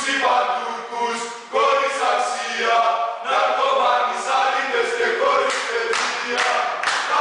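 A large group of voices singing a chant together, joined by rhythmic hand claps at about two a second in the last couple of seconds.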